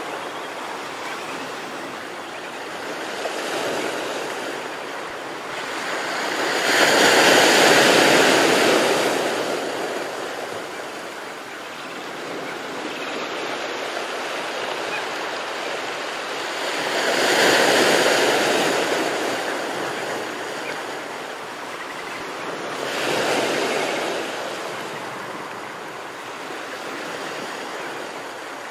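Ocean surf breaking on a beach: a continuous wash of waves that swells louder as larger waves break, most strongly about seven seconds in, again near seventeen seconds and once more around twenty-three seconds.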